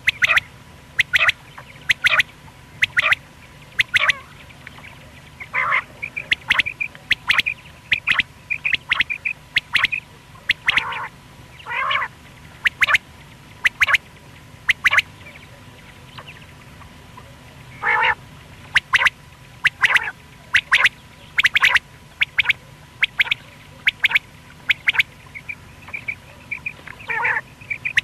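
Common quail calling over and over: short, sharp notes about once a second, sometimes in pairs. A few longer, lower calls come in among them, and softer short chirps between.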